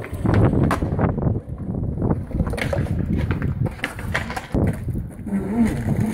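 Skateboard wheels rolling on concrete with several sharp clacks of the board, under a heavy low rumble of wind buffeting the microphone.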